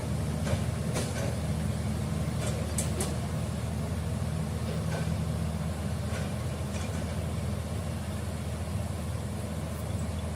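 Komatsu D85E-SS crawler bulldozer's diesel engine running steadily at low revs, with a few short metallic clanks in the first half.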